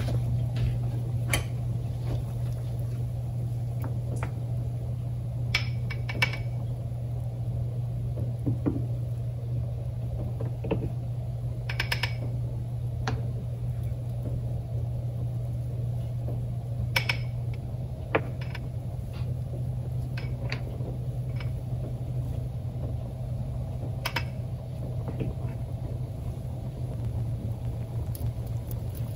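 A spoon clinking against the side of a pot of boiling chicken soup as it is stirred and skimmed, about ten short clinks spread through, over the steady low rumble of the pot on the boil.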